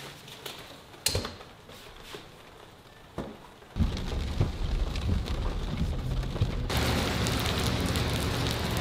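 Two sharp clicks, then about four seconds in a machine starts running: a steady low hum under a hissing, crackling rush that gets louder and brighter about three seconds later.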